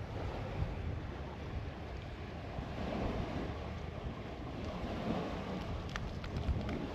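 Wind buffeting the microphone over the wash of sea surf, a steady rushing that swells a little now and then, with a few light clicks near the end.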